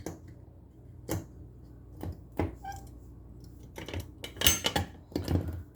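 Irregular clicks and light knocks of small hard objects being handled, a few single ones early and a quick cluster about four and a half seconds in. No alarm horn sounds.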